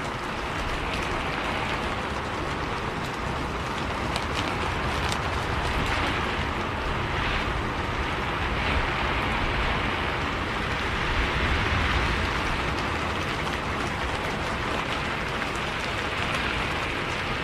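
Rain on a moving bus: a steady hiss of rain with a few sharp drop hits, over a low rumble of road and engine.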